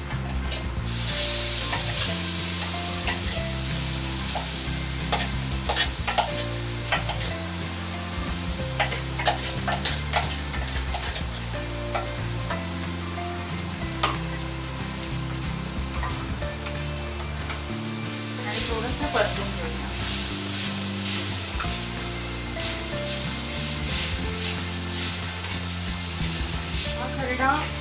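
Coarse-ground green chili, peanut and garlic mixture tipped into hot oil on a tawa. It sizzles sharply about a second in, then keeps frying while a spatula stirs it, scraping and clicking against the pan. Background music plays underneath.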